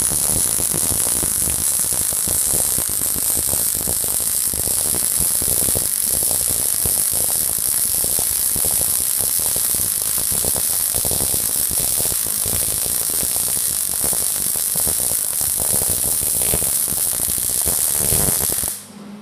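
MIG welder laying a bead on 10-gauge steel: the arc's steady crackle runs on unbroken, then cuts off suddenly near the end as the trigger is released.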